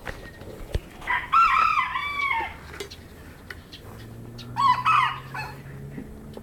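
A Serama rooster crows twice: a longer, multi-part crow about a second in that falls away at its end, and a shorter crow about four and a half seconds in.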